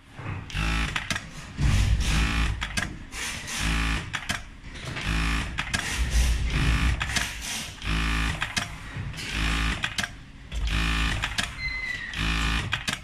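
Direct-drive industrial lockstitch sewing machine running in a series of short sewing bursts, stopping and starting about eight times, with a short faint tone near the end.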